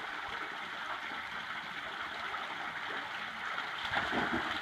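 Small woodland creek running steadily, with a short louder stretch near the end.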